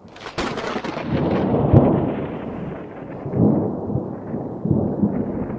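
Thunder sound effect: a sharp crack about half a second in, then rolling rumbles that swell and fade several times.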